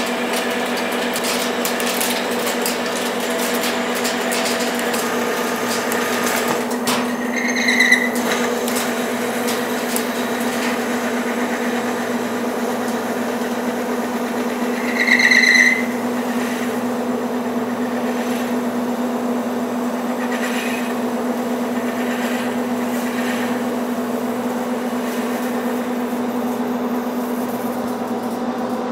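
Large manual metal lathe running under load while boring the inside of a steel nut, a steady hum of the spindle and gears with cutting noise over it. Two short high-pitched squeals from the cut come about 8 and 15 seconds in.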